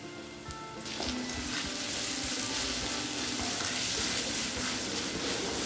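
Sliced onions and curry leaves sizzling in hot oil in a cast-iron kadai while a spatula stirs them. The sizzle gets louder about a second in, then holds steady.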